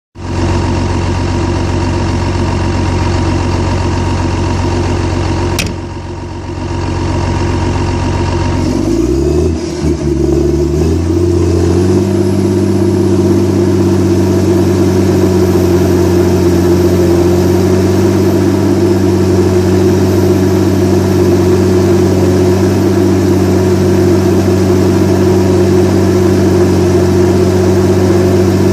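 Komatsu D61EX crawler dozer's diesel engine running steadily, then rising in pitch in steps about nine seconds in and settling at a higher steady speed. A sharp click sounds just before the sixth second.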